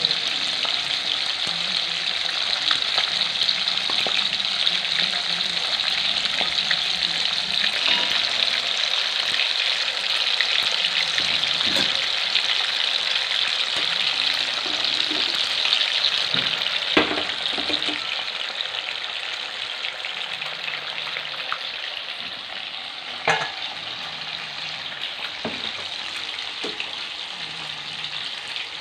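Pieces of catfish frying in hot oil in an aluminium kadai: a steady sizzle that eases off somewhat about two-thirds of the way through. Two sharp knocks stand out, one past the middle and one later.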